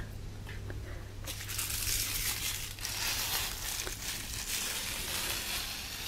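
Mylar ball toy crinkling in a continuous rustle that starts about a second in, over a steady low hum.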